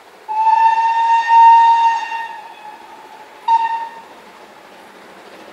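Steam locomotive whistle: one long blast of about two seconds, then a short blast about a second later.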